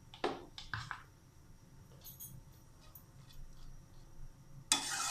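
Metal kitchen utensils clinking and knocking against a cooking pot: a few sharp knocks in the first second, light ticks after, and a short scrape near the end.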